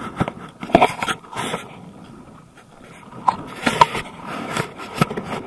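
Gusty wind buffeting the camera microphone, broken by irregular scrapes and knocks of the camera being handled.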